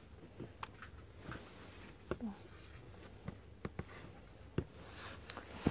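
Soft scattered clicks and taps from hands handling cardboard product boxes on a shelf, over a quiet background, with a louder knock near the end.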